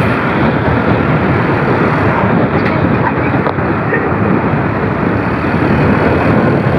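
Loud, steady rushing noise of road traffic passing close by.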